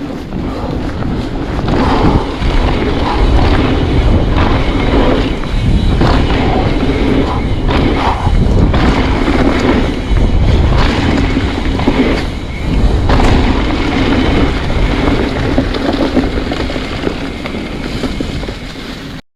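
Trek Fuel EX 9.8 Gen 6 mountain bike riding fast down a dirt trail: wind buffeting the microphone over the tyre roar and rattles and knocks from the bike over rough ground. It cuts off suddenly near the end.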